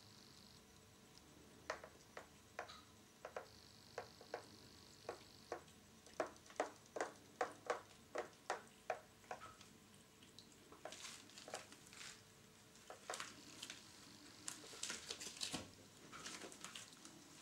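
Cats pawing at the water in a plastic tub: light splashy taps about twice a second, then a busier stretch of splashing and dripping from about halfway through.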